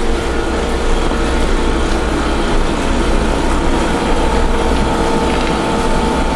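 A machine running steadily, a constant hum with a low rumble underneath.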